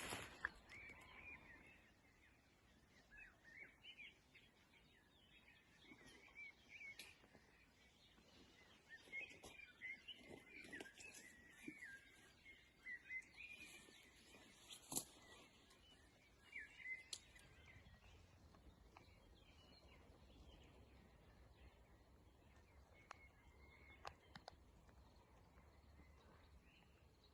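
Faint songbird chirping and twittering, coming in short scattered phrases that thin out after the first two-thirds, over an otherwise very quiet outdoor background with a few soft clicks.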